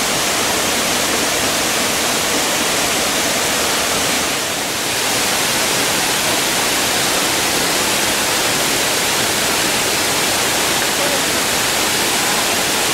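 Waterfall pouring into a rock plunge pool: a loud, steady rush of falling water that dips briefly about four and a half seconds in.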